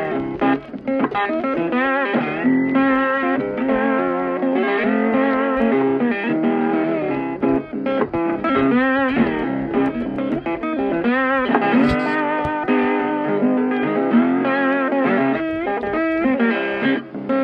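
Background music led by a guitar, with wavering, bent notes.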